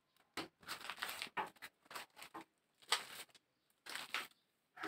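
Soft, irregular rustles and scuffs of a person moving about and handling things: a string of short, separate noises with small gaps between them.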